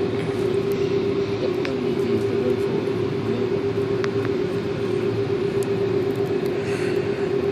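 Cabin sound of an Airbus A330 with Rolls-Royce Trent 700 engines taxiing: a steady engine drone with one held tone, unchanging in loudness, with a few faint ticks.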